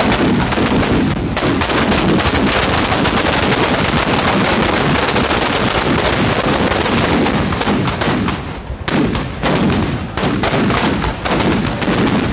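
Firecrackers packed inside a burning Ravana effigy going off in a rapid, unbroken run of bangs; about eight seconds in the bangs thin into looser clusters.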